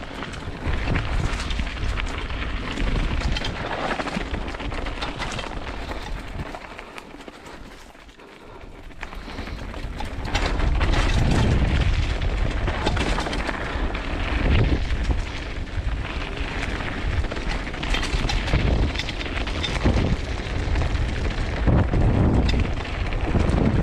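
Wind buffeting the microphone over the rumble and rattle of a mountain bike rolling fast down rough downhill trail. It eases off about eight seconds in, then grows louder again.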